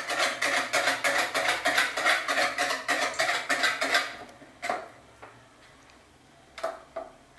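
Stainless wire whisk beating a thin milk-and-egg mixture in a plastic bowl: fast, even strokes of wire against plastic for about four seconds, then it stops. A few light knocks follow as the whisk is laid down in the bowl.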